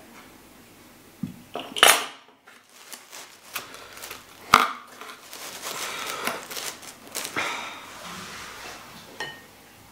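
A table knife set down with a clatter about two seconds in, then another sharp clink, then scraping and rustling as pizza slices are pulled apart by hand in a cardboard box.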